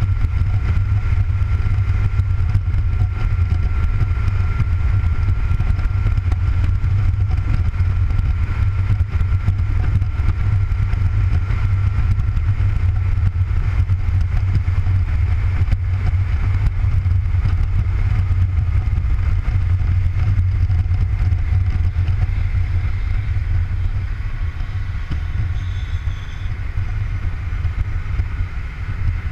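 A cruiser motorcycle's engine running at a steady cruising speed, with wind and road noise over it. It eases off a little near the end.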